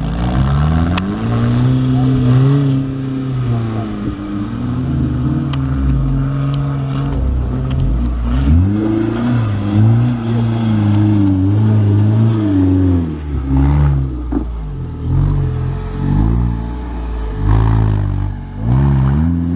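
Off-road 4x4's engine revving hard and unevenly, its pitch rising and falling again and again as the throttle is worked on rough ground, with a few short knocks.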